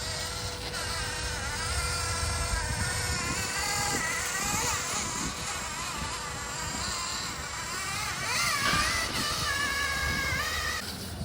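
Small electric motor and gears of a mini RC vehicle whining, the pitch wavering up and down as the throttle changes.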